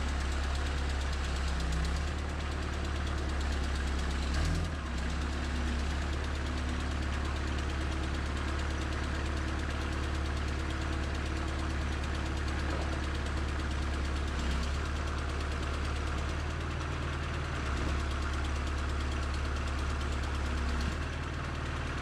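John Deere 310SE backhoe's turbocharged diesel engine running steadily while the backhoe arm is worked. The engine note shifts briefly a few times, about four and a half seconds in, again around fifteen seconds, and near the end.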